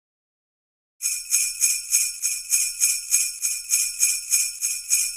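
Jingle bells shaken in a steady rhythm, about three shakes a second, starting suddenly about a second in.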